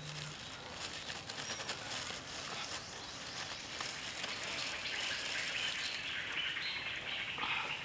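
Outdoor ambience of birds and insects chirping, with a high steady buzz growing stronger from about five seconds in.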